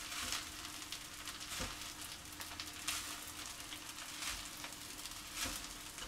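Curried rice and onions sizzling quietly in a frying pan over gentle heat, with a few light knocks as it is tossed and stirred.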